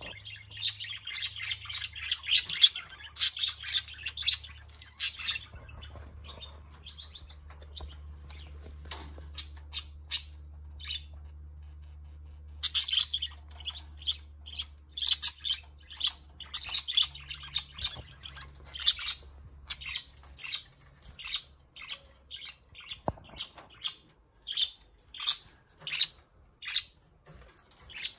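Caged budgerigars chattering, a stream of quick, high chirps that is densest in the first few seconds. Underneath runs a low steady hum that stops about two-thirds of the way through.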